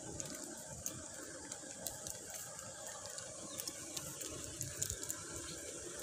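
Faint, steady outdoor background noise: an even high hiss, with a few soft ticks.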